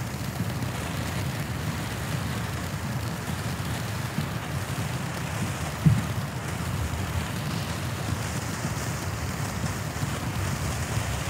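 Black Cat "SHHH!!!" low-noise firework cake firing: a steady rushing hiss of shots and spark effects with no loud reports, and one sharper pop about six seconds in.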